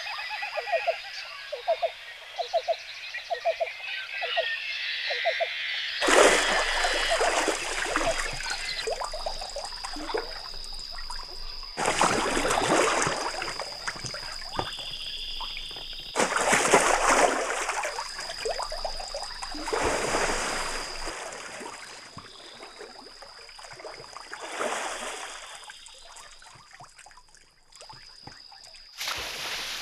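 Frogs croaking in quick, repeated pulses for the first few seconds, then water rushing in loud surges every few seconds, with a thin steady high tone underneath.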